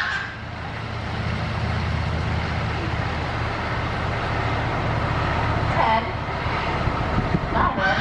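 Bird calls: a short call about six seconds in and another just before the end, over a steady low hum.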